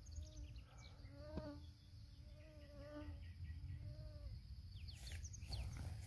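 Outdoor ambience with a low wind rumble on the microphone, three drawn-out pitched calls from something distant in the first four seconds, and quick falling bird chirps near the end.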